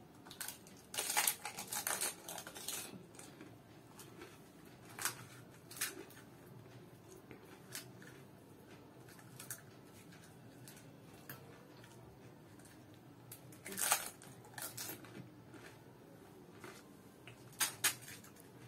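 Crisp, hollow puchka (pani puri) shells crackling and crunching as they are chewed and broken open by hand, in short scattered bursts of sharp crackles. The loudest clusters come about a second in and again near the middle and the end.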